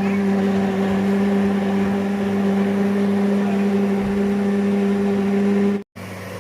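A steady mechanical hum at one constant low pitch, cutting out abruptly near the end and coming back quieter.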